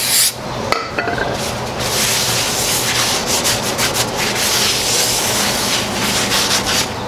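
A short hiss of aerosol brake cleaner that stops just after the start, then a shop towel rubbed back and forth over the face of a new brake rotor, wiping it free of oil before it is fitted.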